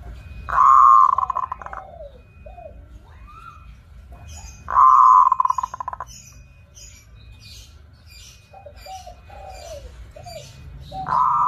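Zebra dove (perkutut) singing: three loud rolling coo phrases, about four seconds apart, each trailed by a few softer falling coos. High short chirps from another small bird run through the middle.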